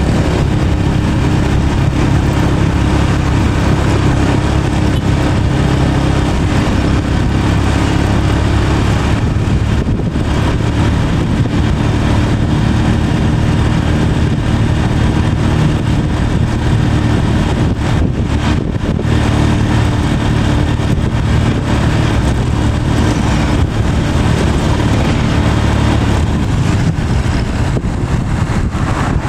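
A vehicle engine running steadily on the move, with constant road and wind noise.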